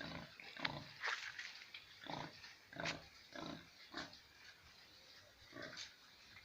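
Three-day-old piglets squealing and grunting in a string of short calls, most of them in the first four seconds and one more near the end.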